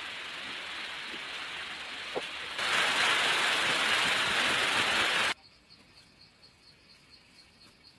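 A steady noisy hiss that gets louder about two and a half seconds in and cuts off abruptly a little after five seconds. Faint insect chirping follows, repeating about four times a second.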